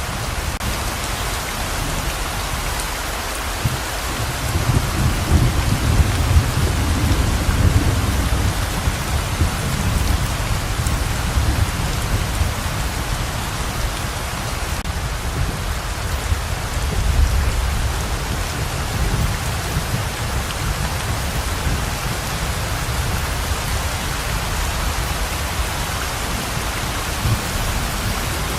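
Steady heavy rain pouring down, with low rumbles of thunder rolling in a few seconds in and again about two-thirds of the way through.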